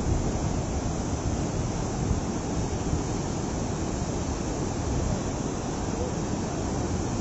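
Muddy river in heavy flood rushing past: a steady, deep rushing water noise with no breaks.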